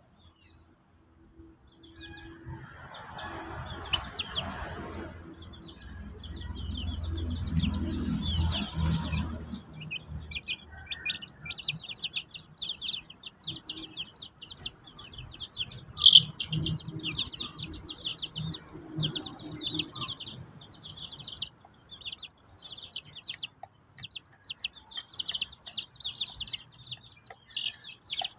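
Young chickens peeping: fast, high-pitched peeps that run almost without a break from about two seconds in. A low rumble comes in about a third of the way through, and a single sharp click about halfway is the loudest sound.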